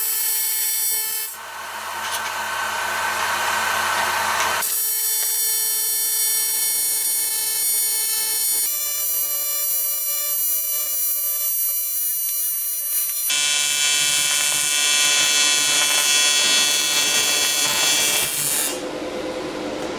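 AC TIG arc on 1/4-inch aluminum from a PrimeWeld TIG225x, buzzing steadily as filler rod is fed into the puddle. The buzz's tone changes abruptly several times.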